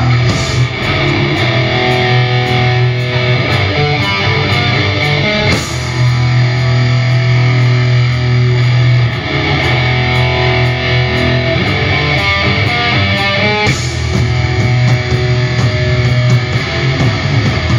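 Black crust band playing live and loud: heavily distorted electric guitar and bass over drums with an even, steady beat.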